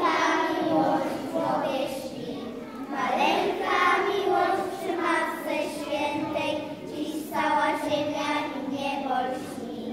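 A group of children singing a Christmas carol together, in phrases with short breaks between them.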